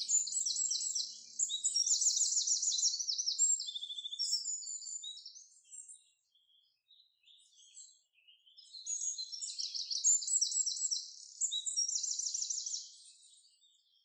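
A songbird singing two long phrases of rapid, high repeated notes, with a pause of about three seconds between them.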